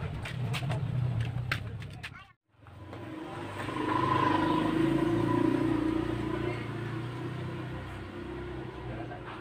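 A few light clicks over a low hum, then, after a brief dropout, a motor vehicle's engine swells and slowly fades away.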